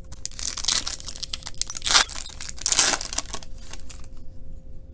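A 2018 Topps Chrome Update trading card pack's wrapper being torn open and crinkled, in several rustling, ripping bursts, loudest about two seconds in and again near three seconds, then going quiet about a second before the end.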